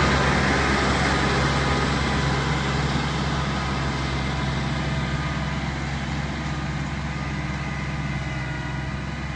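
Kubota L4508 tractor's diesel engine running steadily under load as it pulls a tined cultivator through the soil, growing gradually fainter as it moves away.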